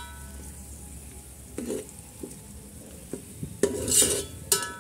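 Steel spoon stirring chopped onions frying in oil in a metal pot: scrapes and clinks against the pot over a faint sizzle, with a ringing clink of spoon on pot near the end.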